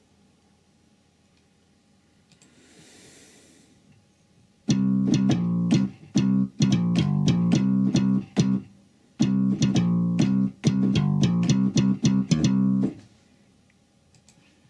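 Sampled bass guitar from the HALion software instrument playing a quick riff of short plucked notes, starting about five seconds in. The riff is played twice with a brief break between.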